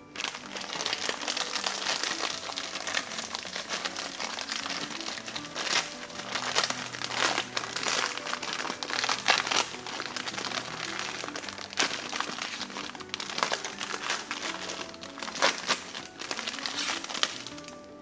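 Foil-lined plastic instant ramen packet crinkling and crackling as it is handled and opened, with a run of sharp crackles and louder crunches, the loudest near the middle and again near the end. Soft background music plays underneath.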